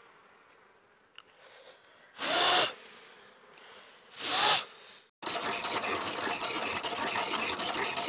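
Faint buzzing of honeybees, broken by two loud whooshing sweeps about two and four seconds in. A little after five seconds, loud electronic intro music cuts in.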